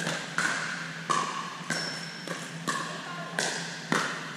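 Pickleball rally: a run of sharp pops from paddles striking the hollow plastic ball and the ball bouncing on the hard court, about seven in four seconds, each echoing briefly in the gym.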